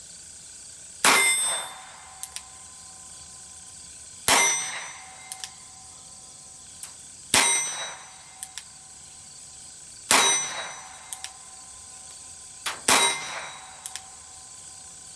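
Smith & Wesson Model 53 revolver firing .22 Long Rifle rounds from chamber inserts, five single shots about three seconds apart, each with a short ringing tail. A pair of small clicks follows about a second after each shot as the hammer is thumbed back for the next one.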